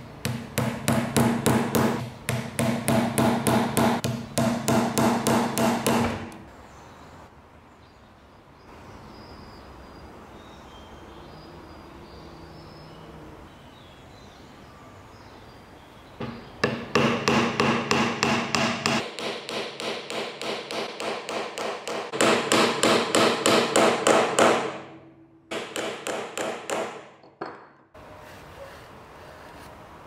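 A small hammer tapping thin nails into the thin wooden panels of a small box: rapid light strikes, about five a second. They come in three runs: about six seconds of tapping, a quiet pause of some ten seconds, then a long run and a short last one.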